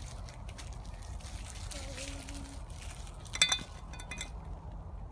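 A single sharp metallic clink with a short ring, about three and a half seconds in, from a child's small digging shovel knocking against metal, over a low rumble.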